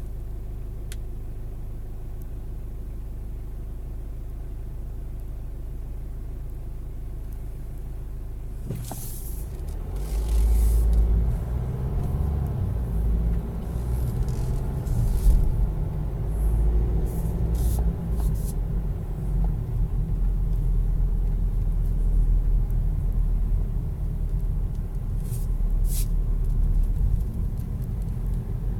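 Car engine idling steadily while stopped, not shut off by its automatic start/stop system, then pulling away about nine seconds in and driving on with a louder rumble of engine and road noise.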